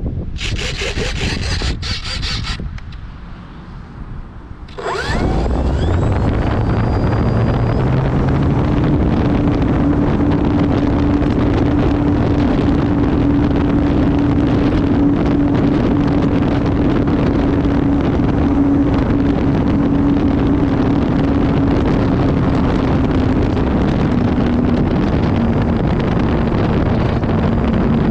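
Electric motor and propeller of an RC plane spooling up with a sharp rising whine about five seconds in, then running steadily at high throttle with a held hum and heavy wind rush over the microphone; the tone drops slightly near the end. Before it, a couple of seconds of noise and a short lull.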